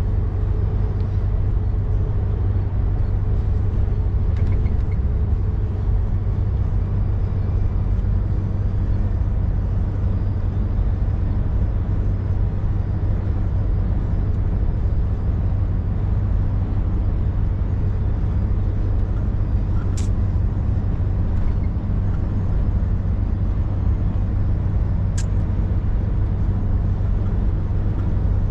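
Scania V8 530S truck's V8 diesel engine running steadily under way, a constant low drone with road noise, heard from the cab. Two brief sharp clicks come about two-thirds and nine-tenths of the way through.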